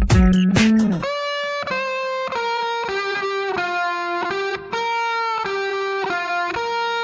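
Background music: a beat with drums for about the first second, then it drops out and an electric guitar plays a slow melody of single held notes.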